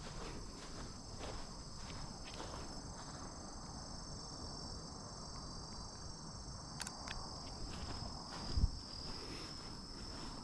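Steady high-pitched chorus of crickets and other autumn insects, with footsteps of someone walking on a path. One low thump comes about eight and a half seconds in.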